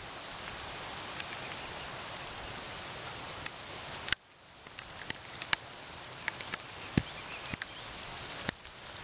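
Steady rain falling, a continuous hiss with scattered sharp ticks of drops landing close by. The hiss drops away suddenly about four seconds in, then builds back up.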